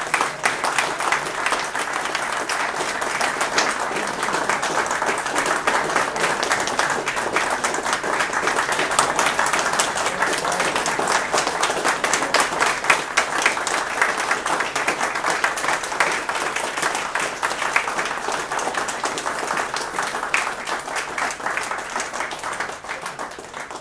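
Small audience applauding: dense, steady clapping that thins out and fades near the end.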